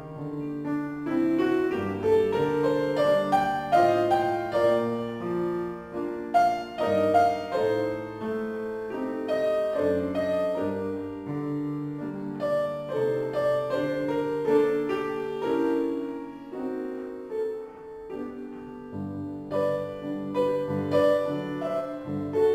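Piano music playing a melody of separate notes over chords.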